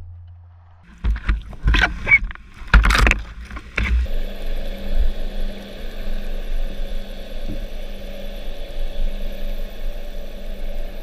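Heard underwater: a short run of loud knocks and scrapes in the first few seconds, then, from about four seconds in, a steady hum of a boat engine carried through the water with a fine rapid ticking above it.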